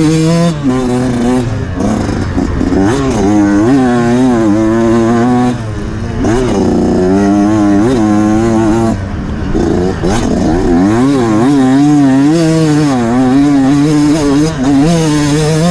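Off-road motorcycle engine running loud, its revs rising and falling over and over, about once a second.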